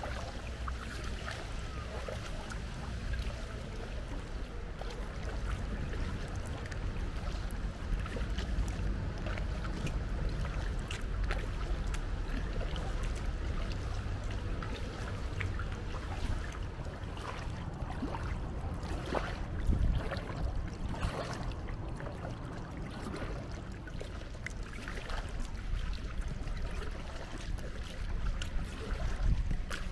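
Kayak paddling on a calm canal: irregular splashes and drips of water off the paddle blades with each stroke, over a steady low rumble.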